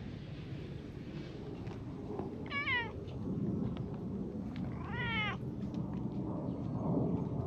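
Brown tabby cat meowing loudly, twice, about two and a half seconds apart; each meow falls in pitch. A steady low rumble runs underneath.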